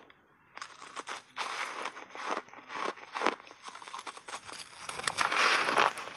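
Close-miked crunching of bites into block ice coated in thick milk powder. After a brief pause there is a run of separate sharp crunches, and they become denser and louder near the end.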